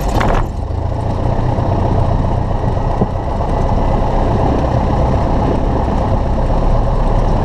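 Cessna 172's piston engine running steadily just after starting on the second attempt, with a short surge in the first half-second before it settles into an even idle.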